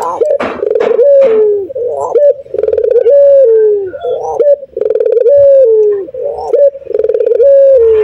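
Male ringneck (Barbary) dove cooing: a string of repeated coos, each sliding down in pitch, a little more than one a second.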